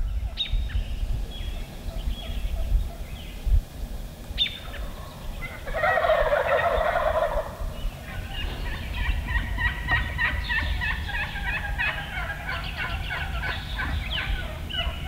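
Wild turkey gobblers gobbling from the roost before fly-down, several birds overlapping. One loud gobble comes about six seconds in, and from about eight seconds on a near-continuous run of gobbles follows.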